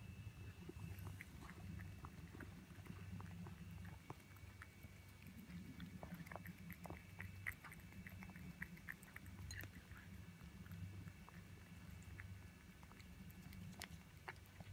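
Cat chewing olives: faint, irregular small clicks and smacks of its mouth and teeth.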